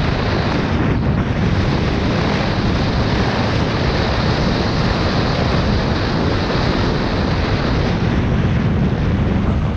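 Loud, steady wind rush buffeting the microphone.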